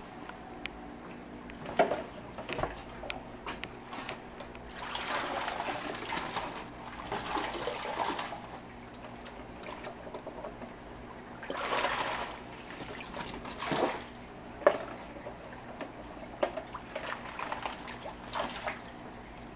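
Water splashing and sloshing in several bursts of a second or two as a net is worked through a tank of goldfish, with scattered knocks and clicks between them. A steady low hum runs underneath.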